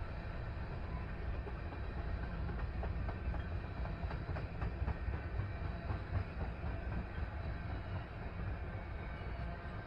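Freight cars of a CN manifest train rolling past: a steady low rumble with scattered wheel clicks over the rails in the middle.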